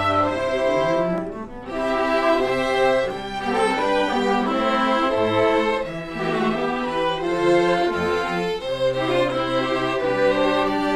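A student string ensemble playing, with violins, cellos and double bass sustaining notes in phrases.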